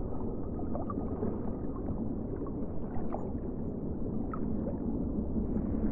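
Muffled watery sloshing and gurgling, a steady dull noise with a few faint brief squeaks.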